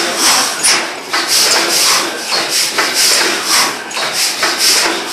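600 hp Snow natural-gas compressor engine running: a rhythmic rasping hiss, about three beats a second.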